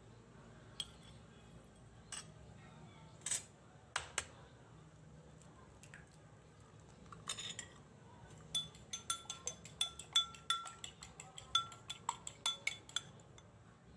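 A fork clinking against a bowl: a few separate clinks, then from about halfway a quick, even run of ringing clinks, about four or five a second for several seconds, as eggs are beaten.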